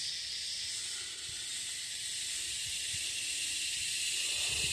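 Steady, high-pitched chorus of insects in the bush, an even shrill hiss with no break.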